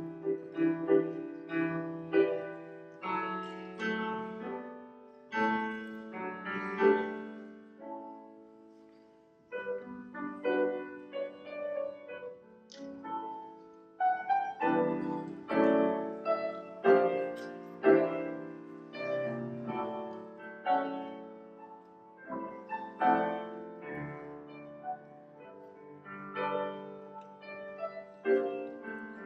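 Solo grand piano playing a slow instrumental piece of chords and melody notes left to ring. It thins to a near-pause about nine seconds in, then picks up again.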